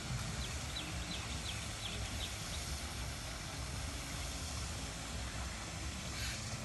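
Outdoor ambience with a steady low rumble, typical of wind on the microphone. A bird gives a quick run of about eight short, high chirps in the first few seconds.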